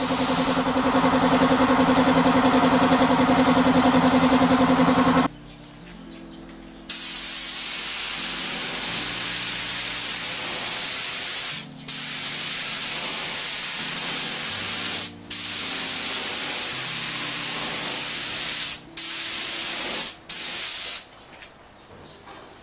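Gravity-feed air spray gun hissing as paint is laid on in passes of one to five seconds, cut by brief breaks each time the trigger is let go. A steady machine hum runs under the hiss for the first five seconds.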